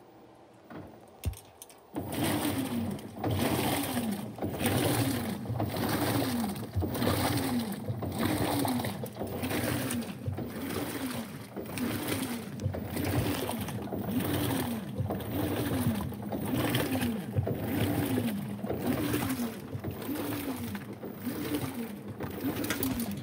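Top-loading washing machine agitating a load of jeans: the impeller motor whirs up and falls back in pitch with each stroke, about one stroke a second, over sloshing water. It starts about two seconds in, after a faint click.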